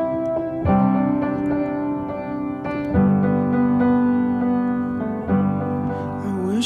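Piano playing slow, sustained chords, a new chord struck about every two to three seconds, as the introduction to a song; a singing voice comes in right at the end.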